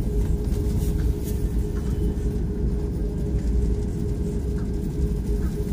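Cabin noise of an Airbus A340-600 taxiing, its Rolls-Royce Trent 500 engines at idle: a steady low rumble with a constant hum.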